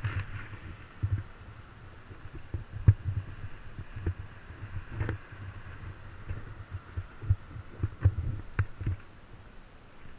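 Irregular low thumping and rumble on a helmet-mounted camera's microphone, with a few sharp clicks.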